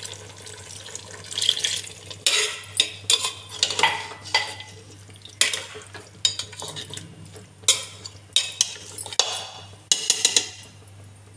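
Slotted metal spatula scraping and clinking against the sides and bottom of an aluminium pressure cooker, in irregular strokes, as chunks of mutton in wet masala are stirred.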